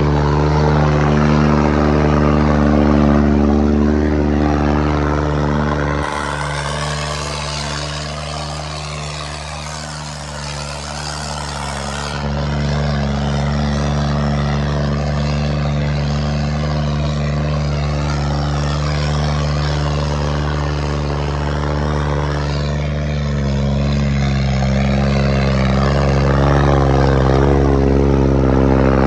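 Diesel tractor engine running loud and steady, with a constant, even pitch. It drops in level and thins for a few seconds partway through, then comes back.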